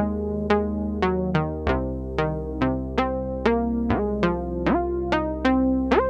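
Roland Juno-106 analog synthesizer playing a plucky patch: a run of short notes, about two a second, each with a sharp attack that fades quickly, over a held bass note that shifts to a new pitch about a third of the way through.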